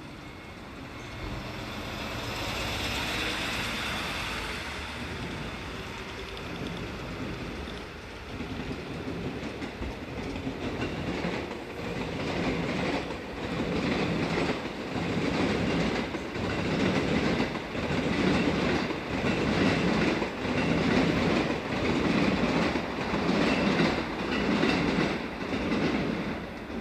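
A train running past, its wheels knocking over rail joints in an even clickety-clack rhythm a little slower than once a second, growing louder partway through.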